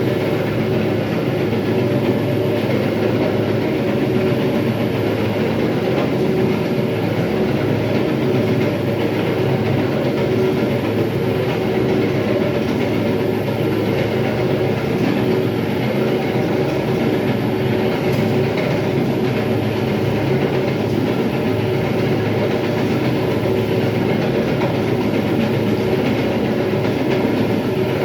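Electric terrazzo grinding machine running steadily as it works the floor: a constant motor hum under a rough, continuous grinding rumble.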